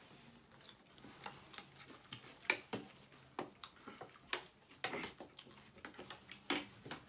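Metal spoons and forks clinking and scraping on ceramic plates as several people eat, in irregular short clicks; the two loudest clinks come about two and a half and six and a half seconds in.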